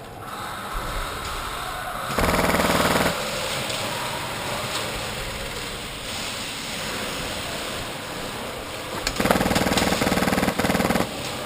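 Airsoft electric gun firing on full auto: a rapid buzzing burst of about a second, about two seconds in, then a longer burst near the end with a brief break in it.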